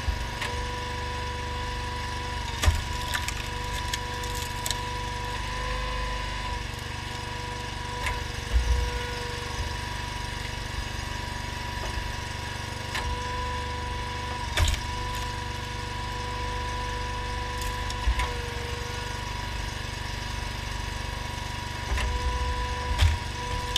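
Honda GX690 V-twin engine running steadily on a homemade hydraulic log splitter, with a whine that comes and goes as the splitter works. Several sharp cracks and knocks of logs splitting and pieces dropping, the loudest a little under 3 s in, near the middle and near the end.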